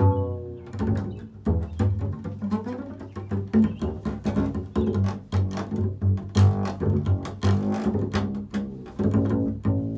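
Double bass played pizzicato: a quick, busy run of deep plucked notes, each with a sharp attack that dies away, closing on a low note left ringing.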